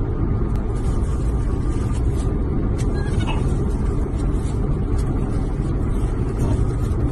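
Steady road and engine noise heard inside the cabin of a moving car, with a faint short squeak about three seconds in.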